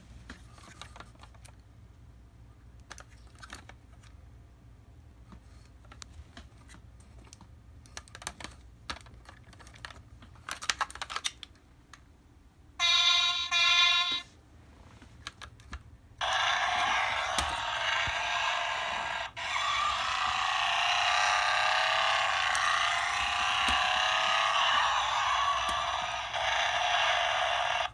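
Clicks and taps of a toy monster truck being handled, then two short electronic tones from its small built-in speaker. After a brief pause, the Road Rippers Razor Tooth toy truck's speaker plays a continuous thin electronic sound effect for about twelve seconds.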